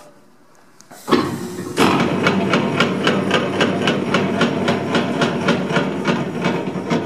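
Hobart MG2032 meat mixer grinder started from its foot switch about a second in, then running with a steady mechanical noise and an even rapid knocking, about three or four knocks a second.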